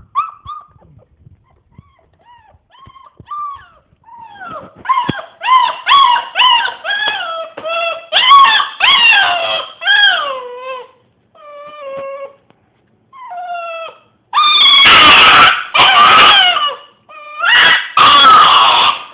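A dog whimpering faintly, then howling in a run of short wavering howls that rise and fall in pitch. Near the end the howls turn into loud, harsh, screaming cries.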